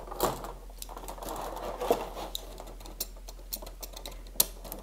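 Clear plastic blister packaging crackling and clicking as hands pick tape off it, with a few sharper clicks standing out, the loudest near the end.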